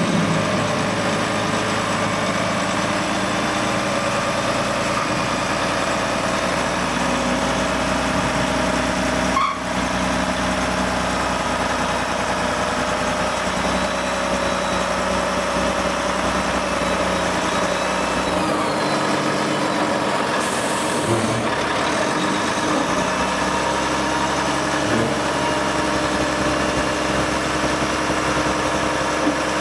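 A heavy engine running steadily, with a short hiss about two-thirds of the way through.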